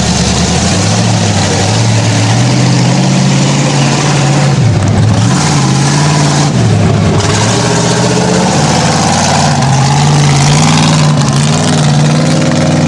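Engine of a large mud-bogging 4x4 truck on oversized tyres, revving hard under load as it drives through the mud pit. The revs climb about a second in, then drop briefly twice, around five and seven seconds in, before picking up again.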